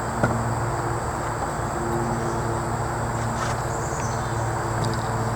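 Steady low hum with a steady high whine above it, and a faint click about a quarter second in.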